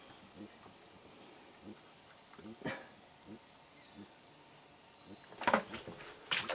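Steady high-pitched insect chorus, with a few sharp knocks: a faint one about two and a half seconds in, and louder ones about five and a half seconds in and just before the end.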